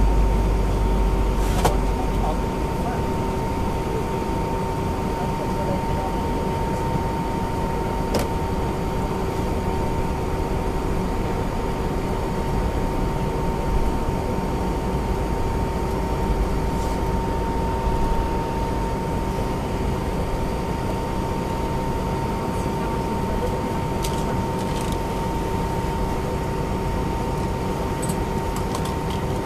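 Cabin noise of an Airbus A320-232 taxiing, its IAE V2500 engines at idle: a steady drone carrying two steady tones, slightly louder in the first couple of seconds, with a few faint cabin clicks.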